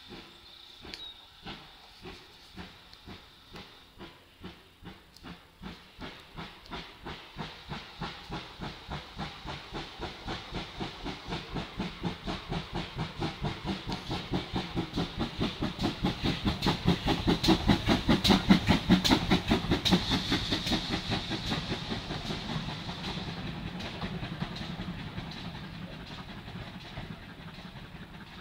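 Steam locomotive chuffing past with a train of coaches. Its exhaust beats grow louder and quicker as it approaches and are loudest about two-thirds of the way through. They then fade into the steadier running noise of the coaches.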